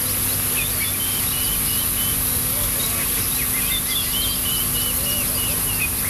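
Birds chirping and trilling repeatedly over a steady high hiss and low rumble of outdoor ambience.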